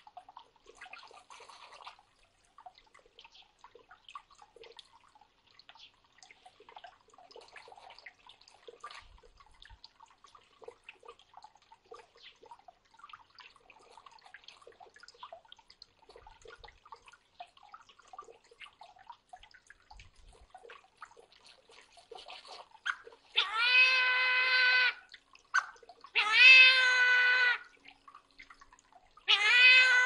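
Faint dripping water from a birdbath fountain, then three loud, long meowing calls, each about a second and a half and steady in pitch, starting a little over twenty seconds in.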